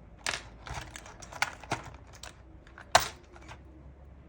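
Toy earrings being worked out of their plastic packaging: irregular small clicks and crinkles, with one louder click about three seconds in.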